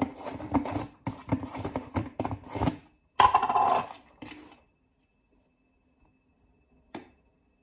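Quick light clicks and rattles of a plastic scoop and tub as clear whey protein powder is scooped out, with a louder clatter about three seconds in. It then goes almost silent, broken by one click near the end.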